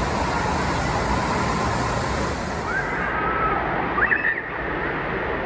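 Wave pool surf churning and breaking in a steady wash of water noise. Children's brief high cries rise over it about three and four seconds in.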